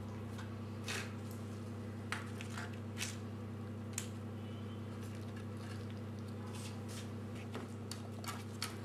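Hands laying soft fried aubergine slices into a metal baking dish: scattered soft squishes, rustles and light taps. Underneath runs a steady low hum.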